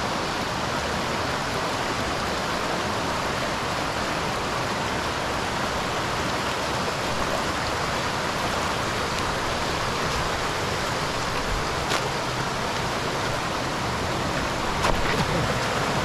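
Steady rushing of running water, an even hiss with no rhythm, with a couple of faint clicks late on.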